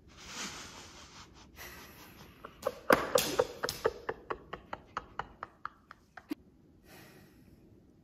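A man breaking into laughter: a breathy snort, then a run of short laughs that slow down and fade out about six seconds in.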